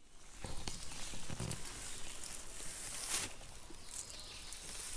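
Rustling and crackling of dry leaves and brush in undergrowth, with a few soft thumps in the first second and a louder rustle about three seconds in.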